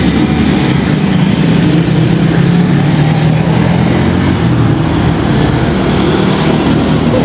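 Road traffic passing close by: motorcycles, scooters and a truck, with a steady low engine hum that weakens in the last couple of seconds.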